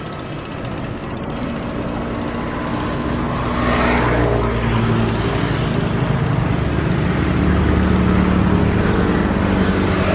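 Engine noise with a low hum and a broad rushing sound, growing louder over the first four seconds and then holding steady.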